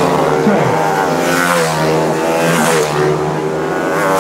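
CG 300-class race motorcycles running at high revs past the track edge, several engines overlapping, their pitch rising and then falling as bikes go by, about half a second in and again near three seconds.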